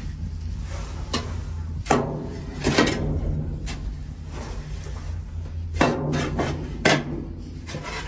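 A metal scraper scraping and knocking against the galvanized steel of a feed bin, dragging the last of the feed along the trough in several separate strokes. A steady low hum runs underneath.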